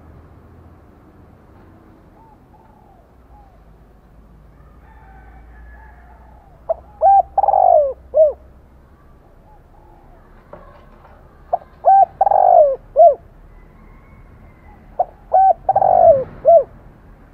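Spotted dove cooing: three loud phrases about four seconds apart, each a couple of short coos, a longer rolling coo and a closing note, after some fainter coos. It is the dove's fighting-style calling used to provoke a rival male.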